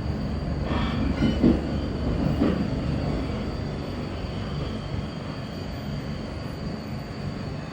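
Tokyo Metro Ginza Line train running slowly over the track at the depot level crossing, its wheels squealing briefly in the first few seconds as the low rumble then fades away.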